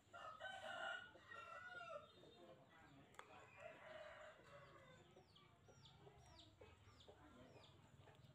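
A rooster crowing faintly: one long crow over the first two seconds and a weaker call about four seconds in. Then a small bird gives five quick falling chirps, about two a second, and a single sharp click sounds just after three seconds.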